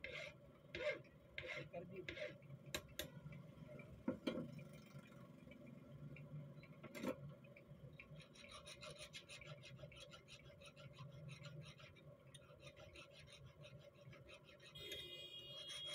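Faint hand filing on a small steel rifle ejector clamped in a bench vise. The first few seconds hold several spaced strokes and a few sharp clicks. From about halfway in, a round needle file scrapes in quick, short strokes, shaping the part.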